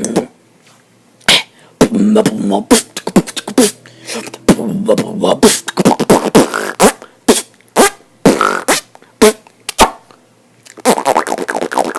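Beatboxing: sharp mouth percussion hits and clicks mixed with short voiced, pitched vocal sounds, in irregular bursts with brief pauses near the start and just before the end, closing with a fast run of rapid hits.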